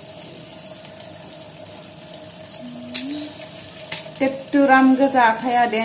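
Tap water running into a plastic colander of cut fish in a steel sink, with two small clicks as the pieces are handled. A person's voice comes in about four seconds in and is the loudest thing near the end.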